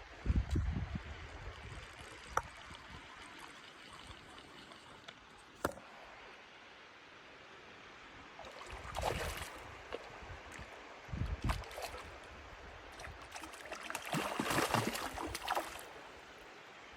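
Water trickling in a shallow, very low mountain trout stream, with a few sharp clicks and two short rushes of splashy noise, about nine seconds in and again near the end.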